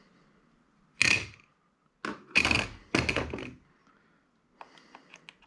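Several hard clunks as parts of a handheld scanner's casing and its circuit board are pulled apart and set down, followed near the end by a few light clicks.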